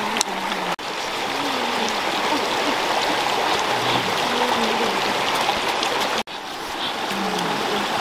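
Rocky stream rushing over stones, a steady watery hiss that cuts out for an instant twice, about a second in and again near the end.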